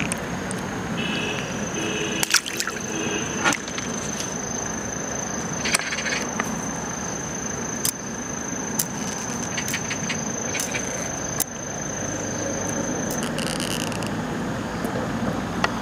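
A steady high insect trill over a constant background hiss, the trill stopping about 13 seconds in. Scattered sharp clicks and knocks come from handling the fishing line and float close to the microphone.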